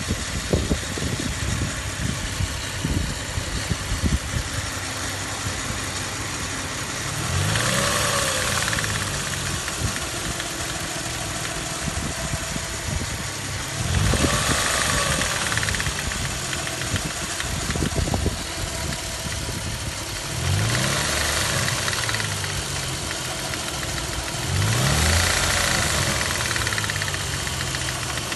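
Toyota 1G-FE straight-six idling with an irregular knock, which the owner places in the front of the cylinder head and hears at 900–1300 rpm. The engine is revved up briefly and falls back to idle four times, about every six seconds.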